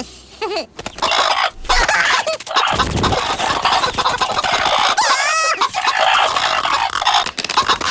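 A flock of hens clucking and squawking in an excited din, with a wavering, rising squawk about five seconds in and a low thump a couple of seconds before it.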